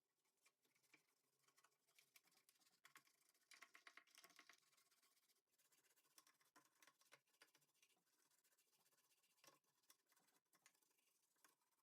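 Near silence, with faint scattered clicks and rustling and a denser run of quick ticks about three to five seconds in.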